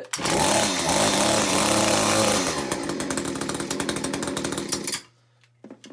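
Echo HC-2020 hedge trimmer's 21.2 cc two-stroke engine running on its first start with the choke off, its pitch swelling and falling once as it is revved. The sound ends abruptly about five seconds in.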